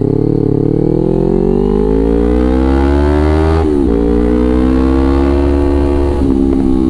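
Kawasaki Ninja 250 FI's parallel-twin engine through a Villan ZX1 aftermarket exhaust, pulling under acceleration with a rising pitch. About three and a half seconds in the pitch drops sharply at an upshift, then climbs again more gently and levels off.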